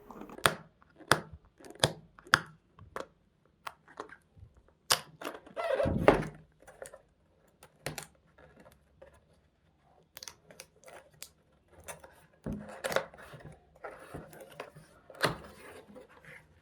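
A cardboard keyboard box and its packaging being opened and handled: a run of sharp clicks and thunks, with a few longer tearing, crinkling stretches about six seconds in and again near the end.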